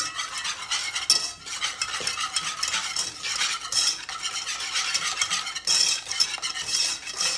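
Wire whisk beating eggs and sugar in a nonstick saucepan: a fast, continuous rattle and scrape of the wires against the pan that cuts off abruptly at the end.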